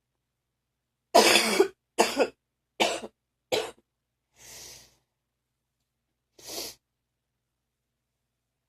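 Person's phlegmy morning cough: a run of four coughs, the first the longest and loudest, then a softer breath and one more short cough about two seconds later.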